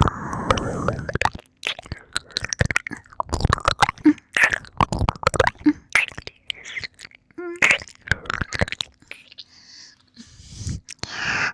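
Close-up wet mouth sounds of ear-licking ASMR: irregular licks, lip smacks and tongue clicks. A breathy gasp comes at the start and more breathing near the end.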